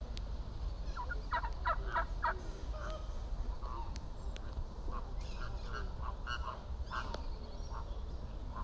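A flock of flamingos calling: short goose-like calls, a quick run of them about a second in, then scattered calls.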